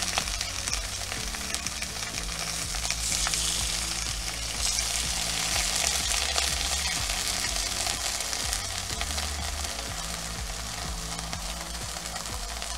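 Slices of Canadian bacon sizzling in a hot stainless-steel skillet. The sizzle grows louder a few seconds in as more slices are laid in the pan.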